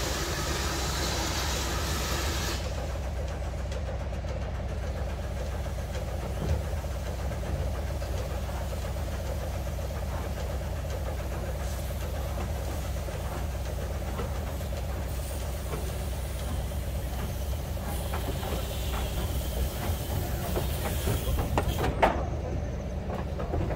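Steam hissing from a saddle-tank steam locomotive that cuts off about two and a half seconds in. Under it a small diesel shunter's engine idles steadily with a low rumble throughout. Near the end come a few sharp clanks as the steam locomotive moves off.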